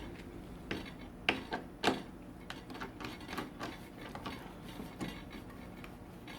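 Irregular metallic clicks, clinks and knocks of tools, screws and parts being handled while a cooking appliance is taken apart. The two sharpest knocks come a little past one second and just before two seconds.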